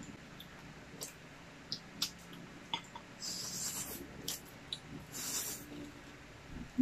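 Close-miked eating of spicy instant ramen noodles: two long slurps of noodles, about three and five seconds in, among scattered wet mouth clicks and chewing. A short loud hum comes right at the end.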